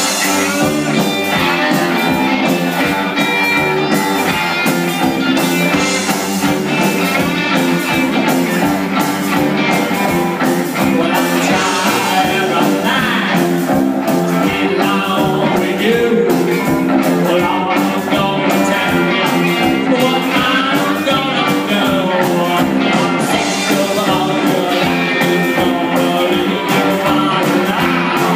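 Live rock band playing: electric guitars over a drum kit keeping a steady beat, with some singing.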